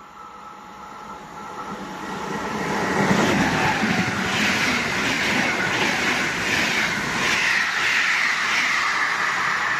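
EC 116 Silesia passenger express running through a station at speed: the rushing noise swells over the first three seconds as the train arrives, then the coaches go past with a steady rumble and a regular beat of wheels on the rails.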